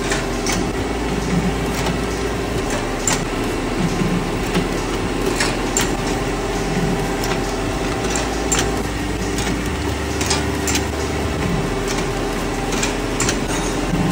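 Ice lolly production machinery running with a steady hum. Sharp clicks and clanks come about once a second.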